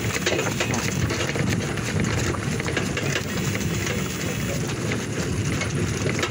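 Horse-drawn wagon rolling along a paved road behind a walking draft mare: a steady rumble with a constant clatter of small rattles and knocks.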